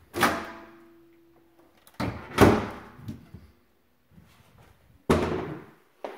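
Kitchen doors being opened and banged shut, first the over-the-range microwave door and then a wall cabinet door: three sharp clunks, one near the start with a brief ringing after it, the loudest about two and a half seconds in, and one about five seconds in.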